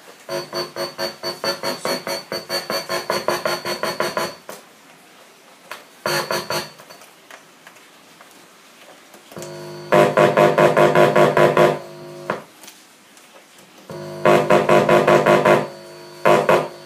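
Electronic keyboard playing fast repeated chords, about seven strokes a second, in five short bursts that stop and start again, as a sound check through the mixer.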